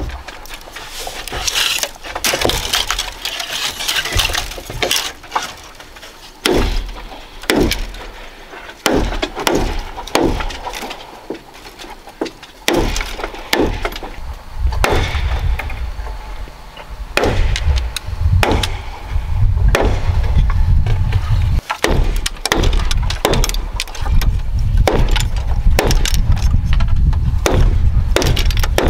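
Blade chopping off the protruding ends of woven bamboo strips against bamboo poles, with the stiff strips rustling: a long string of sharp wooden clicks and snaps. A low rumble joins in during the second half.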